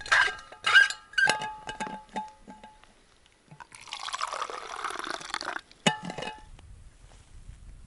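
A drink poured from a thermos into a stainless steel thermos cup, a steady pour lasting just under two seconds about four seconds in. Sharp metallic clinks that ring briefly come from the cup and thermos several times before the pour and once just after it.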